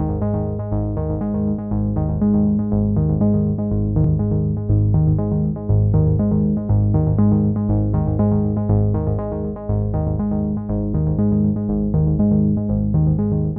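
Background music: a synthesizer keyboard tune with notes changing in a steady, repeating rhythm.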